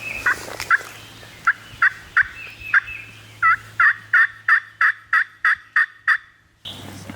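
Turkey yelping: a series of short, clear yelps, a few spaced out at first, then a quick run of about ten near the end that stops abruptly.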